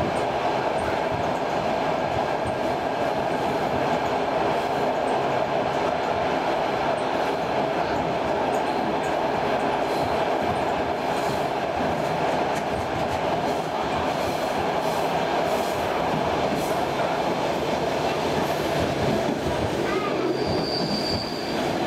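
Running noise of a Class C10 electric commuter train heard from inside the carriage: a steady, loud noise of the train moving along the track. Near the end there is a brief high-pitched tone.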